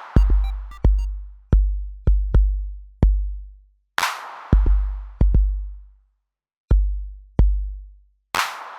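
Instrumental outro of an electronic drum-machine backing track: deep kick drums with long, low decaying tails and sharp clicks, broken by a crash cymbal at the start, about four seconds in, and near the end, with brief silent gaps between phrases.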